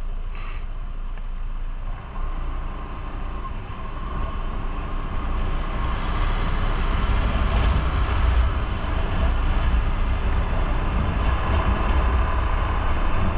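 Motorcycle engine running in stop-and-go traffic, idling at first and then louder from about five seconds in as the bike moves off, with road and wind noise rising.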